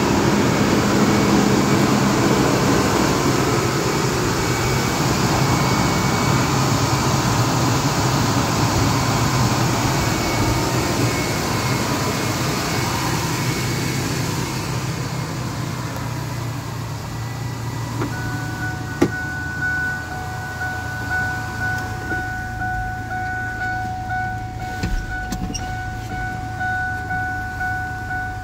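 A 1998 Ford F-150's 4.2-litre V6 idling just after a cold start, left running to recharge a weak battery. About two-thirds through there is a click, then a steady high tone that keeps on.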